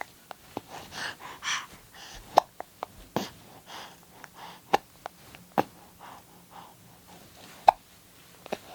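A newborn baby hiccuping: a run of short, sharp hiccups every second or two, about five clear ones, with soft breathing between them.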